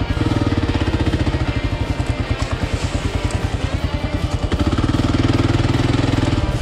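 Kawasaki KLR650's single-cylinder engine pulling at low speed along a rough dirt track, its firing beat steady. It gets louder as the throttle opens for about the first second and again for the last couple of seconds.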